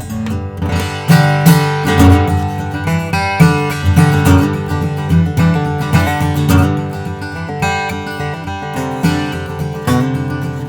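Acoustic guitar, a slope shoulder dreadnought with solid mahogany back and sides and an Adirondack spruce top, played with ringing chords and notes.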